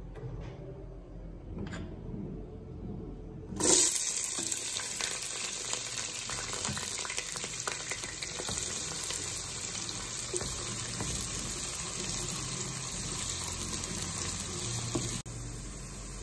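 Chopped red onions going into hot oil in a pot and frying: a sudden loud sizzle about three and a half seconds in, which settles into a steady crackling sizzle.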